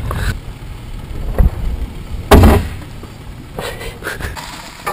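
A loud, sharp thump a little over two seconds in, with a lighter knock about a second before it.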